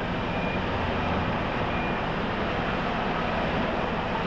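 A heavy vehicle's engine running steadily, a continuous low rumble under a wash of outdoor noise.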